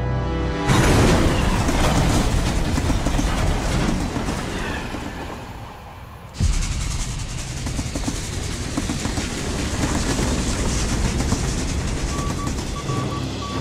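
Steam train running on the rails, a loud rushing noise that eases and dips around five seconds in, then comes back suddenly. Near the end a telegraph starts beeping in short, evenly spaced pulses.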